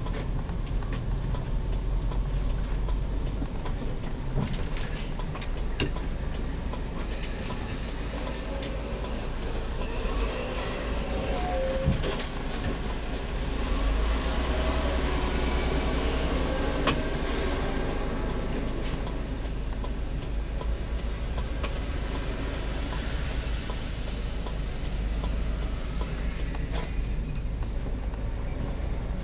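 Heavy motorhome on the move: a steady low rumble of engine and road noise with scattered clicks and rattles, and a hiss that swells for a few seconds around the middle.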